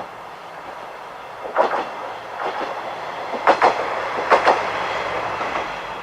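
Wheels of a KiHa 120 diesel railcar clacking over rail joints, the clacks mostly coming in quick pairs, over a steady running noise. The clacks begin about one and a half seconds in and are loudest near the middle.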